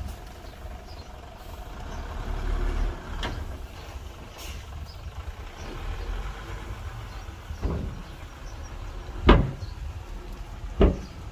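Heavy earthmoving machinery with a low, steady engine rumble, broken by a few sharp metallic-sounding knocks, the loudest two about nine and eleven seconds in.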